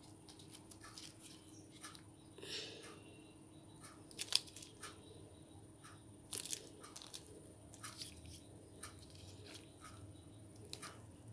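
Faint, scattered clicks of crystal beads knocking together and soft rustles of gloved hands as a beaded string is knotted, tightened and handled. The sharpest click comes about four seconds in.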